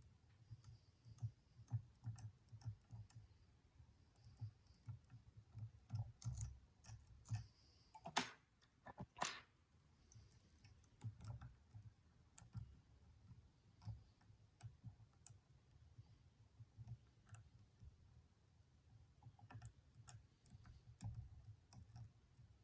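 Faint, irregular clicking of a lock pick and tension wrench working the pin tumblers of a Stanley padlock, with soft handling thumps and two louder strokes about eight and nine seconds in.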